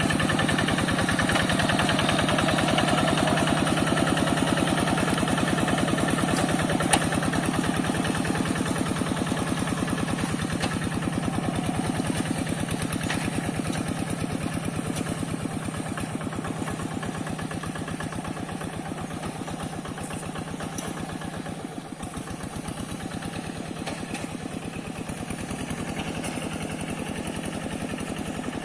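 Diesel engine of a two-wheel hand tractor running steadily with an even, rapid chugging beat, growing gradually fainter across the stretch.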